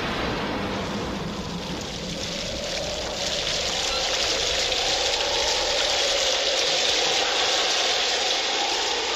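Steady heavy rain, a recorded storm sound effect that opens a soul record. A faint wavering tone rises in over the rain's hiss from about two seconds in.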